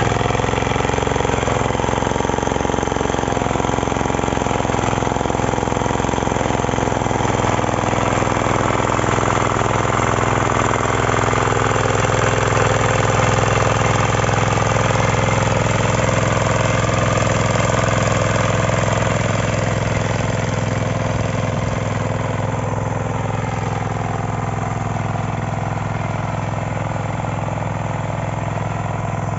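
9 HP power weeder's small engine running steadily under load, a little quieter for the last third.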